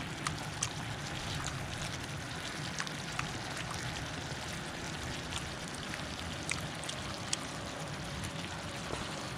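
Duck stir-fry sizzling steadily on a griddle pan over a gas camp stove, with sharp pops and crackles scattered throughout as the sauce cooks down.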